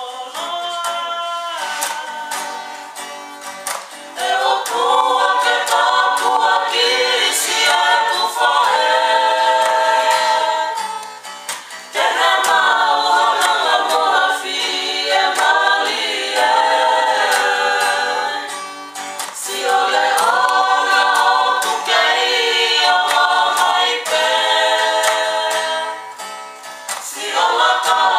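A small group of singers singing a song in Tongan in harmony, with strummed acoustic guitar accompaniment. The sung phrases pause briefly about 11, 19 and 26 seconds in.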